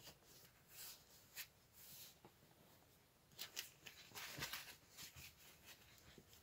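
Faint rustling and brushing of clothing fabric as a shirt is pulled onto a doll, a few soft scratchy handling sounds, the loudest of them between about three and a half and four and a half seconds in.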